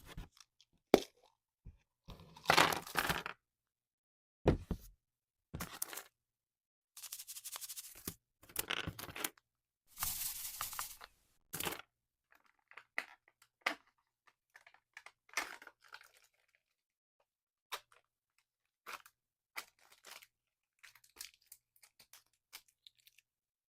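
Slime being mixed and squished: irregular wet pops, crackles and squelches, with a few longer stretches of crackling and short clicks between.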